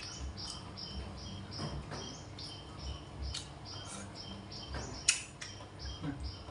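Close-up chewing of crunchy vegetables from sour soup, water lily stems and cabbage, with a crisp crunch about three times a second. A sharp click about five seconds in.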